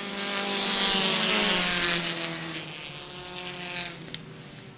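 Compact touring race car engine passing at speed down the front stretch. It is loudest early on and fades after about two and a half seconds, its pitch easing down as it goes by.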